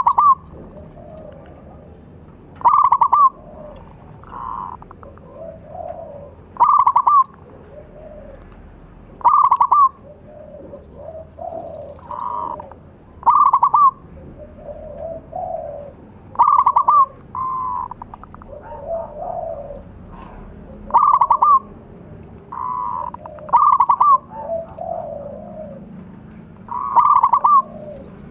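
Zebra doves (perkutut) cooing: a loud, crisp cooing phrase repeats about every three seconds, with softer cooing phrases in between.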